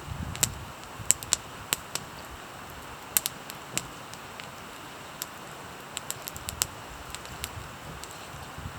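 Campfire crackling: irregular sharp pops and snaps, several clustered at times, over a faint steady hiss.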